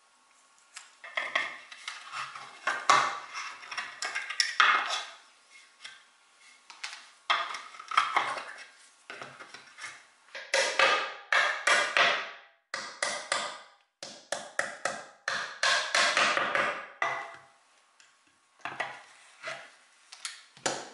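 Metal hand scraper scraping across the face of a bent plywood chair panel in quick, irregular strokes with short pauses between bursts, taking off old wood and glue remnants; a few isolated short scrapes near the end.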